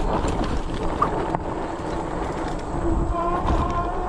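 Wind buffeting the microphone over the rumble of a Magicycle fat-tire e-bike's tires rolling over a bumpy dirt track, with a couple of knocks from bumps about a second in.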